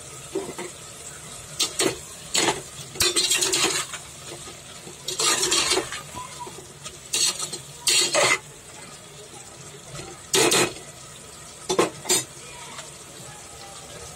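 A spoon stirring kidney beans in tomato-onion masala in a metal pressure cooker pot. There are a dozen or so short, irregular scrapes and clatters of the spoon against the pot, over a low, steady sizzle of frying.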